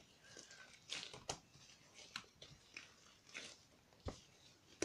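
Snow slime made with artificial snow and shaving foam being kneaded and squeezed in rubber-gloved hands: faint, irregular squishing and crackling with several sharp little pops.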